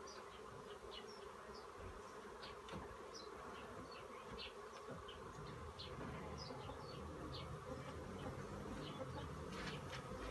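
Asian honey bees (Apis cerana) of a colony being opened and its comb removed, buzzing steadily and faintly, with short high-pitched ticks scattered throughout.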